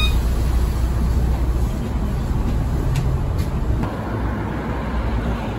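Steady low rumble of a city bus's engine and road noise heard from inside the bus, with two faint clicks about three seconds in; near the end it gives way to slightly quieter street traffic noise.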